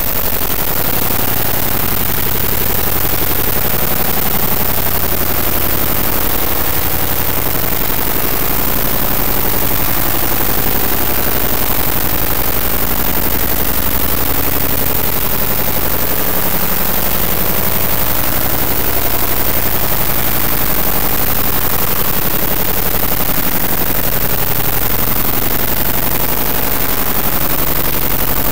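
Harsh noise music made by turning image file data into audio: a loud, unbroken wall of grainy static spread across all pitches, with a rapid crackle running through it.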